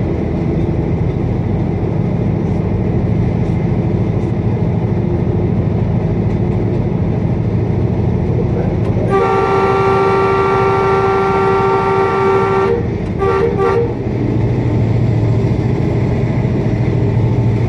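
Pakistan Railways ZCU-20 diesel-electric locomotive running under way with a steady low engine and rail noise. About nine seconds in, its horn sounds one long two-note blast of about three and a half seconds, followed by two short toots.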